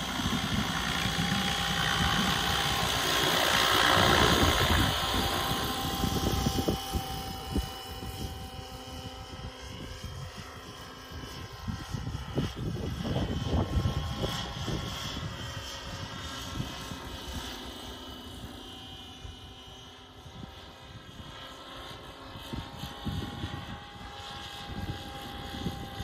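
Scale RC Bell 222 helicopter on electric Align T-Rex 700 mechanics flying, with a steady whine from its rotor and drivetrain. It is loudest as it passes close about four seconds in, then grows fainter as it moves away.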